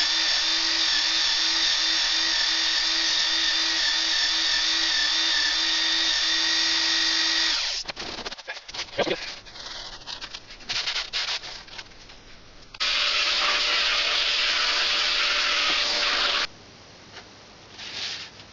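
Small electric power tool running steadily, stopping about eight seconds in, followed by a few clicks and handling knocks, then running again for about four seconds before stopping.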